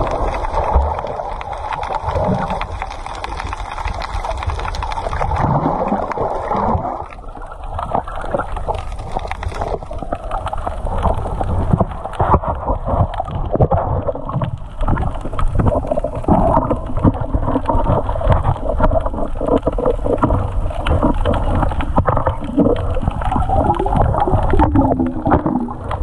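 Water and bubbles gurgling, picked up by a camera held underwater and heard muffled, with dense crackling and many small knocks from the swimmer's movements.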